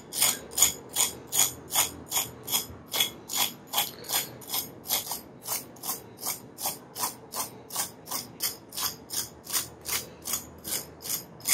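Fork tines scraped again and again over the crisp crust of a deep-fried lentil (dal) snack, a dry crunchy rasp about twice a second, the sound of how crisp and well fried it is.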